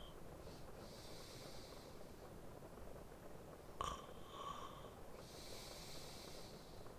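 A sleeping man breathing slowly: two long, soft breath hisses, with a short nasal snort about four seconds in, over a faint steady rain ambience.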